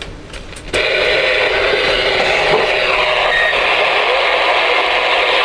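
A few small clicks, then about 0.7 s in a steady hiss of receiver static comes on from the Ranger RCI-2970N2 ten-meter radio's speaker.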